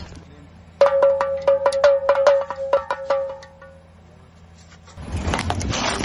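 A toy pellet drum being shaken: its bead beats the drumhead in a quick run of sharp clicks, about five or six a second, over a steady ringing tone for about three seconds. About a second before the end comes a rough grinding noise as a car tyre rolls onto the toy.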